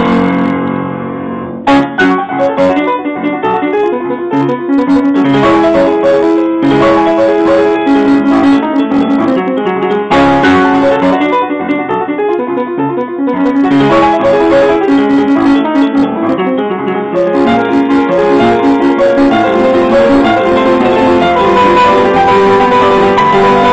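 Steinway & Sons upright piano played solo, loud and fast. A held chord dies away, then a forceful attack about two seconds in sets off rapid runs and chords, with another strong accent about ten seconds in.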